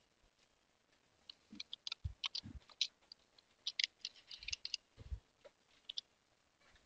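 Typing on a computer keyboard: irregular runs of key clicks, with a few dull knocks among them.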